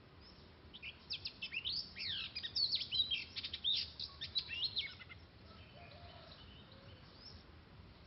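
Oriental magpie-robin singing: a burst of rapid, varied whistled notes sliding up and down, starting about a second in and stopping around five seconds.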